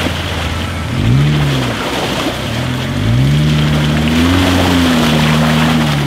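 Jeep Wrangler engine revving up and down as it crawls through deep mud: a short rev about a second in, then a longer rise from about three seconds that holds. Muddy water sloshes and splashes around the tyres.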